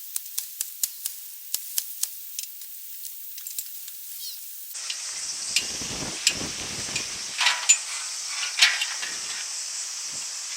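Sharp clicks, about three a second, that thin out and stop; then, about five seconds in, rustling handling noise with scattered clicks and a few low thumps.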